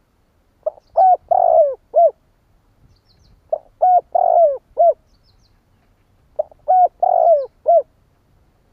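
Spotted dove cooing its song three times, about three seconds apart. Each phrase is a quick run of four notes, the third one longer, in the rallying call of a decoy bird used to draw wild doves.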